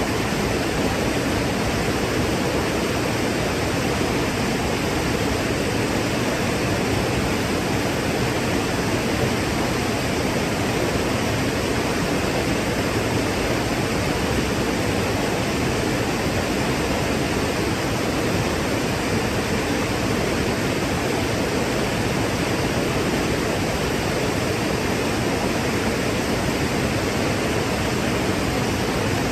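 Waterfall: water falling in a steady, unbroken noise, fullest in the low-middle range, with no separate splashes or changes.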